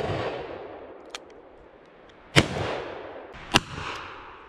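Two shots from a Smith & Wesson Governor revolver, a little over a second apart, each a sharp crack with a short ringing tail.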